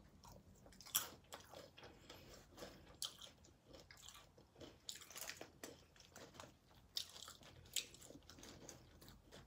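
Close-miked chewing of loaded nachos: tortilla chips crunching in the mouth in faint, irregular crackles, with a few sharper crunches.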